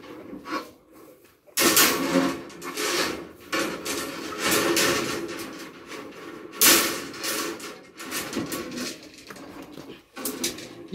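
Bundles of steel rebar being pulled off a truck bed, scraping and clattering against the truck's side rail. There are three loud pulls, about two to three seconds apart, with smaller knocks between them.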